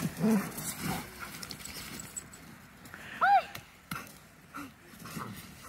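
Dogs' paws and feet crunching and scuffing in snow as the dogs chase about, with one short high yelp from a dog, rising and falling in pitch, about three seconds in.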